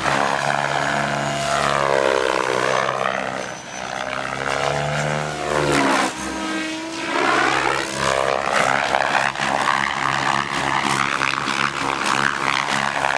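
MSH Protos Max Leggero electric RC helicopter flying hard 3D manoeuvres: loud rotor blade noise and drivetrain whine that swoop up and down in pitch again and again as it flips and passes.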